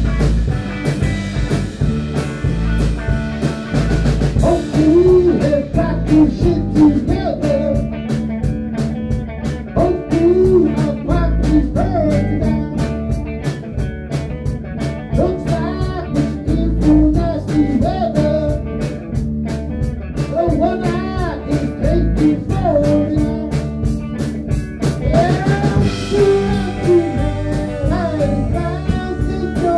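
Blues-rock band playing live: electric guitars, bass guitar and a drum kit, with a lead line that bends up and down in pitch.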